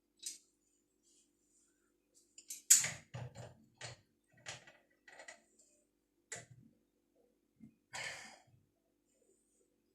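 A string of short, sharp knocks and clicks, about a dozen, with the loudest knock near the start, from pipe fittings and tools being handled while working an old pipe joint loose.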